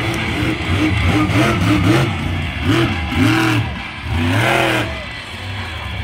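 Monster truck engine revving hard in repeated throttle bursts, its pitch climbing and dropping five or six times as the truck is driven over the dirt jumps.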